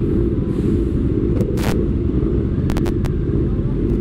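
Steady low rumble of a motorcycle riding in slow, jammed traffic, with several short clicks between about one and a half and three seconds in.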